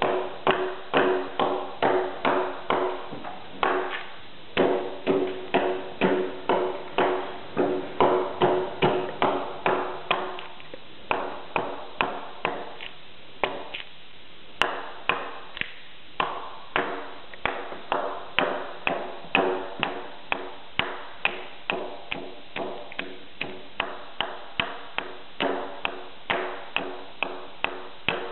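Hand axe hewing a corner notch into a squared timber log: steady chopping at about two blows a second, each blow ringing with a short, woody tone. The chopping pauses briefly a couple of times about halfway through.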